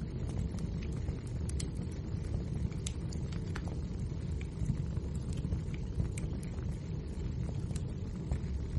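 Wood fire burning steadily: a low roar of flames with frequent sharp crackles and pops from the burning logs, several a second.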